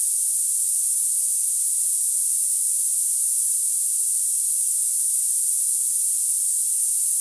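Tinnitus-masking narrow-band noise centred on 10 kHz: a steady, high-pitched hiss with no low end and no change in level.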